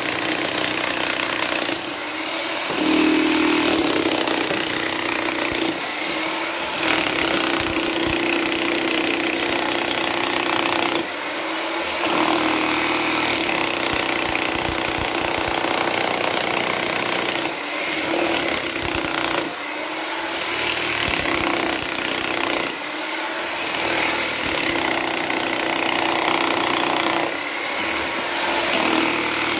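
Einhell 32-joule corded electric demolition hammer running and chiselling into rocky, compacted ground. It runs in long stretches, stopping for a moment about seven times.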